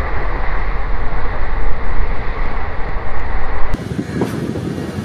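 Parasuram Express passenger train running on the rails, a loud steady rumble heard from an open coach doorway. Near the end the sound cuts abruptly to quieter, lighter running.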